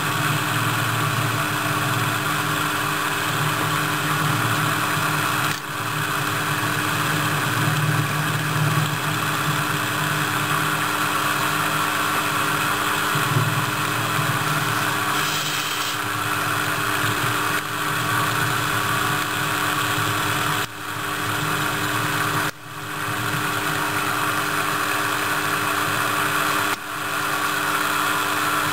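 JMD-1 benchtop milling machine running steadily, its end mill cutting the sides of a pentagonal pocket in a duralumin ball. The level dips briefly a few times.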